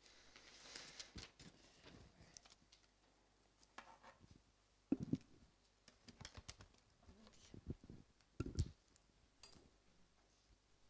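Faint scattered clicks and knocks of a laptop and cables being handled at a lectern, picked up by the lectern microphone, with a few louder dull thumps about halfway through and near the end.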